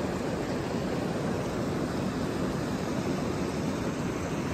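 Steady rushing of water over rocks, an even noise without surges or breaks.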